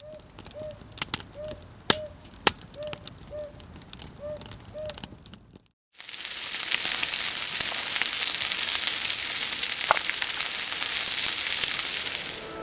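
Wood campfire crackling, with sharp scattered pops and a few faint short chirps. Then, after a sudden cut about six seconds in, food sizzling loudly in a pan over the fire, a steady dense hiss.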